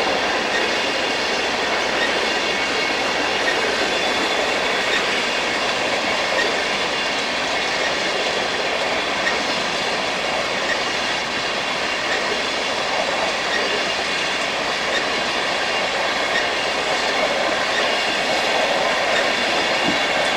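Freight train cars rolling past on jointed rail, a steady rolling clatter of steel wheels with faint, steady high-pitched tones over it.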